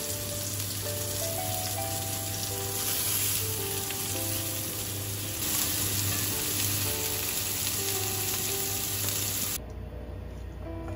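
King oyster mushrooms sizzling in butter in a frying pan, a steady hiss that grows louder about halfway through and cuts off suddenly near the end.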